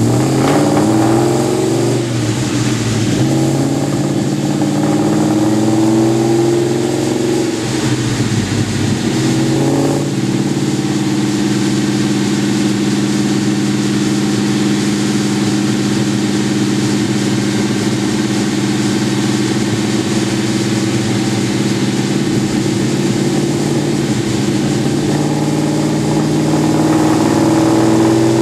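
Cammed 4.6-litre V8 of a 2001 Ford Mustang GT with a Magnaflow exhaust, running on a chassis dyno. The revs climb over the first few seconds, drop back about eight seconds in, then hold steady before climbing again near the end.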